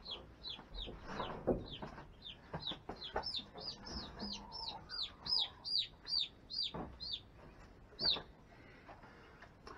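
A young chicken peeping loudly and over and over, about three short falling peeps a second, typical distress calls of a chick that has escaped and is being caught; the peeps stop about eight seconds in. A few dull knocks of handling sound beneath them.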